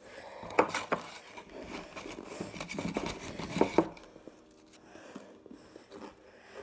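Close-up crunching and chewing of a mouthful of Takis rolled tortilla chips, with irregular crisp crackles that are busiest for the first four seconds and then quieter.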